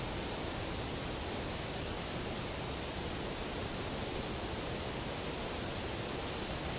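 Steady, even hiss of background noise from a field recording, with no knocks, howls or other distinct sounds in it.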